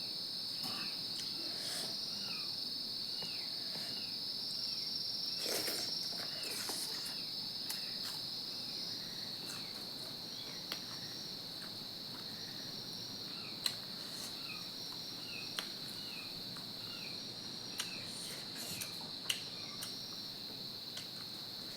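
Insects, likely crickets, trilling in one steady high tone. Short falling chirps repeat faintly beneath it, and a few sharp clicks sound now and then, the loudest about a third and two-thirds of the way through.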